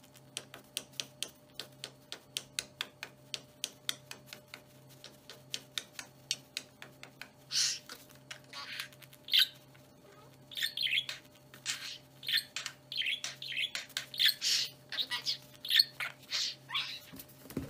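Budgerigar chattering: a rapid run of short clicks for the first several seconds, then a string of bright chirps and warbles.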